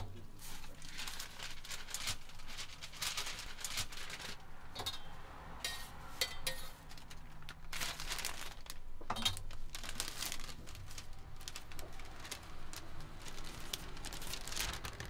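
Paper crepe wrapper rustling and crinkling in irregular bursts as it is handled and a folded crepe is slid into it.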